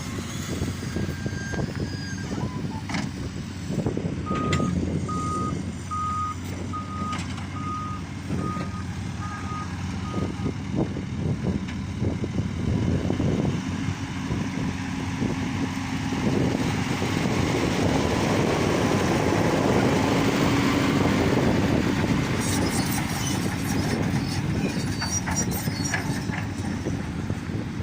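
Heavy construction machine's engine running, with a reversing alarm giving about nine short, evenly spaced beeps in the first half. The engine grows louder about midway, with occasional knocks and clanks.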